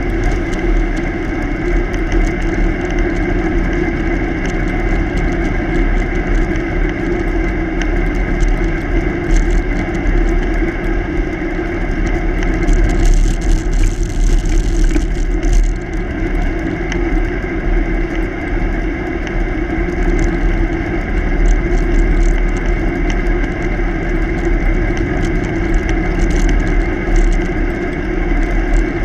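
Steady rumble of wind and tyre noise picked up by a camera mounted low on a moving bicycle, with a steady hum running through it. A brighter hiss rises for a couple of seconds about halfway through.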